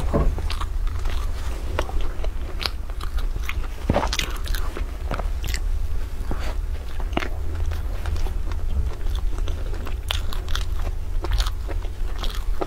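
Close-up biting and chewing of a large soft sponge cake with a browned top crust: a run of small moist clicks and crackles, with tearing of the cake near the start. A steady low hum lies underneath.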